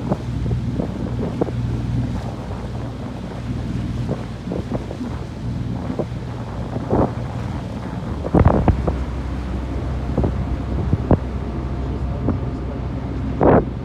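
Motorboat engine running steadily at cruising speed, with wind buffeting the microphone. Several short thumps stand out, the loudest about halfway through and near the end.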